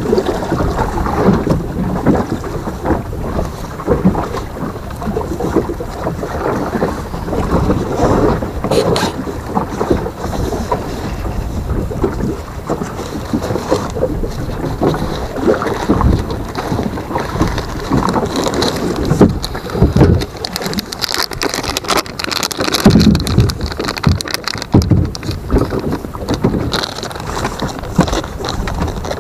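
Cloth rubbing and rustling against the microphone, an irregular run of scrapes and soft knocks with some wind noise.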